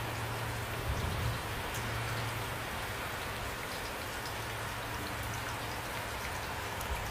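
Steady rain falling, with individual raindrops ticking here and there over the even hiss, and a low hum underneath.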